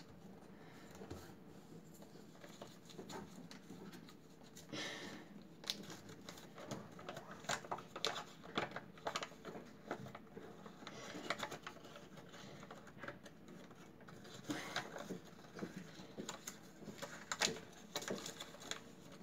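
Origami paper being folded and creased by hand on a wooden desk: faint, irregular rustles and crinkles with small sharp clicks as the folds are pressed down.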